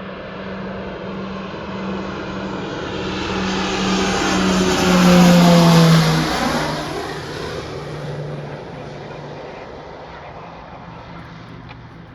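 A propeller airplane flies past. Its engine drone grows louder to a peak about five seconds in, drops in pitch as it passes, then fades away.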